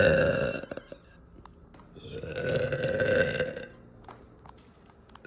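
A young woman burping: a long burp that is already under way trails off just under a second in. A second long burp swells up about two seconds in and lasts nearly two seconds.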